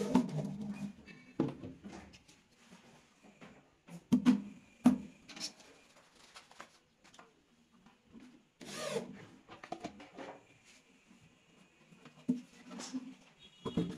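Knocks and clatter of wood and metal as a steel drawer slide, a plywood drawer box and a power drill are handled, with a short scraping burst about nine seconds in.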